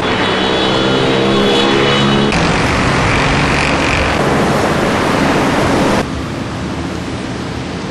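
Dense city road traffic noise, a steady roar of many cars with a few steady engine tones in the first two seconds. It changes abruptly about two seconds in and drops quieter about six seconds in.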